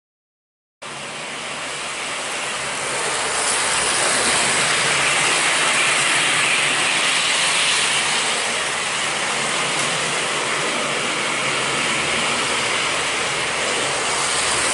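American Flyer S-gauge model passenger train running along the track: a steady rushing whir of wheels on rail and motor. It starts abruptly about a second in and swells over the next few seconds.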